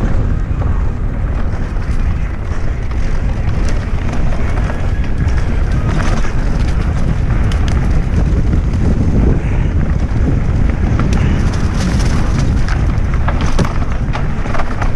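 Mountain bike descending a dirt trail: wind buffeting the microphone over the rumble of tyres on dirt and rocks, with scattered clicks and rattles from the bike.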